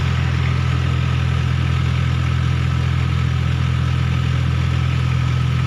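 A vehicle engine idling close by: a steady, even low hum.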